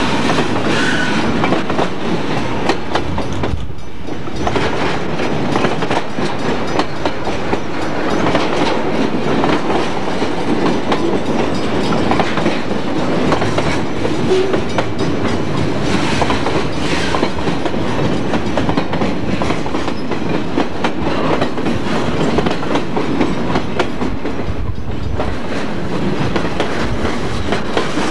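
Freight train of container cars passing a few feet away, its steel wheels rolling on the rails in a steady, loud rolling noise, with a short lull about four seconds in.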